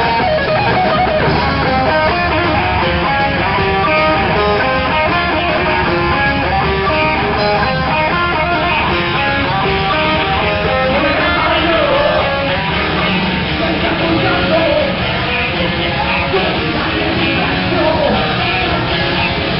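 Heavy metal band playing live: electric guitar picking quick runs of notes over a full band, with pitches that bend and slide from about halfway through.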